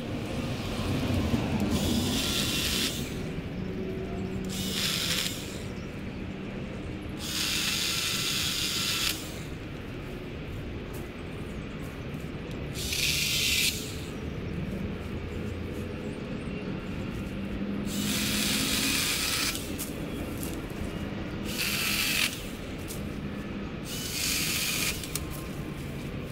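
Handheld cordless power cutting tool cutting branches out of a bush in about seven short bursts, each lasting one to two seconds, with pauses between them.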